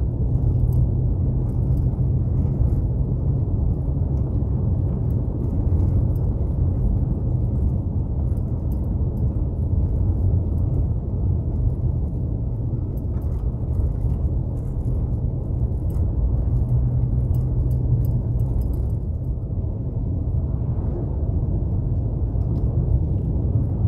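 Cabin noise of a Subaru Impreza driving on a snow-covered highway: a steady low rumble of tyres and engine, with a few faint light ticks.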